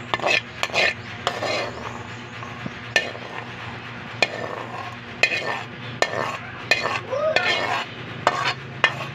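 Metal spatula scraping and clanking against a wok while vegetables are stir-fried, in a series of sharp strokes about once or twice a second, over a low sizzle.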